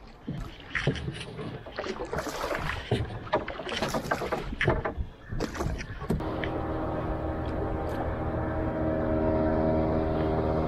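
Oars splashing in the water as a small wooden canoe is rowed, in irregular strokes. About six seconds in, background music with held, steady notes takes over.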